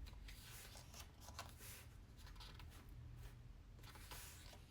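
Faint paper rustling: several soft swishes as the glossy pages of an album photo book are turned, over a faint low hum.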